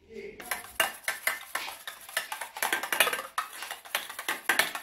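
Eggs being beaten by hand in a stainless-steel bowl, the utensil clinking against the bowl in quick, uneven strokes, about four a second.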